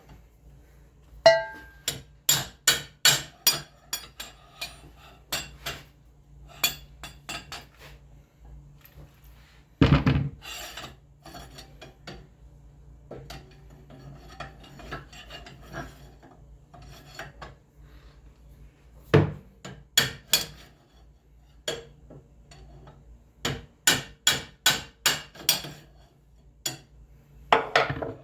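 Hammer blows on a metal bar, driving a worn bearing out of a treadmill roller. The blows come in quick runs of about three a second with pauses between, and the first one rings briefly.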